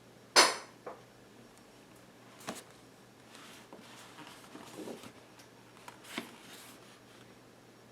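Handling noises from unboxing a watch's box and packaging: a sharp click about half a second in, then scattered small taps with soft rustling and scraping in between.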